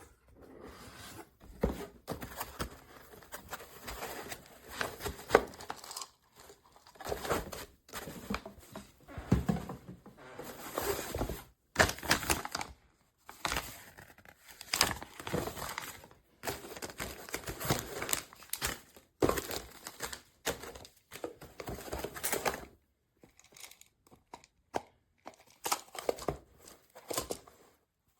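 Irregular rustling and crinkling, coming in short bursts that start and stop, sparser near the end.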